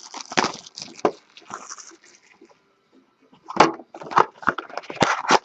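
Handling of cardboard card boxes and packaging: scattered clicks, taps and short scraping knocks, pausing briefly in the middle, then a quick cluster of clicks as a mini box is readied for opening.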